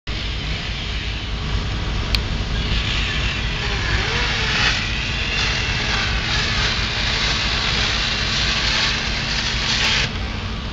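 Steady engine rumble of a fire engine running at a house fire, with a continuous hiss over it. A sharp click comes about two seconds in and another near the end.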